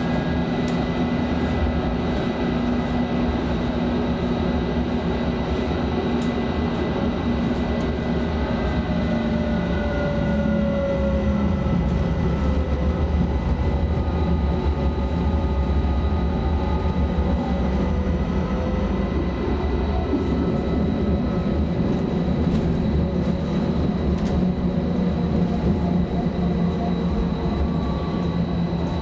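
Tram running along, heard from inside the passenger car: a steady rumble of wheels on the rails with a constant high tone, and whining tones that slide in pitch about a third of the way through as the tram changes speed.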